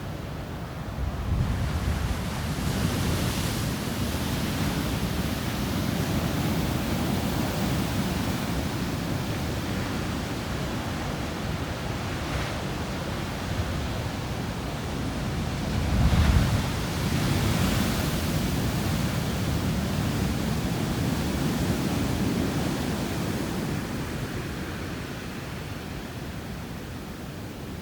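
Heavy typhoon surf breaking on a beach, with strong wind rushing over the microphone. The sound surges twice, loudest about sixteen seconds in.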